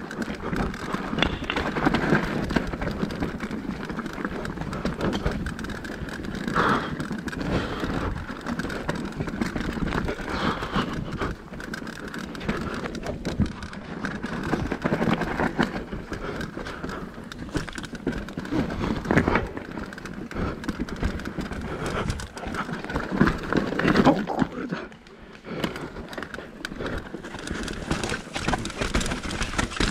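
Mountain bike descending a rough downhill trail: tyres rumbling over dirt, roots and rocks with frequent knocks and rattles from the bike, and wind on the helmet camera's microphone. There is a short lull near the end.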